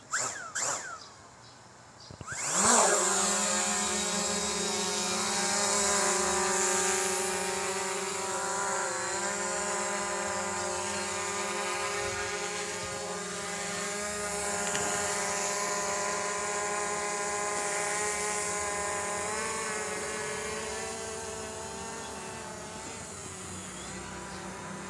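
FIMI X8 SE quadcopter drone's motors spinning up with a quick rising whine about two seconds in as it takes off, then its propellers whining steadily in the air, a little fainter near the end.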